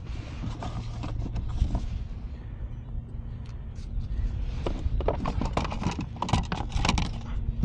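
Wind buffeting the microphone, with a run of knocks and clatters from gear being handled against the plastic kayak hull in the second half.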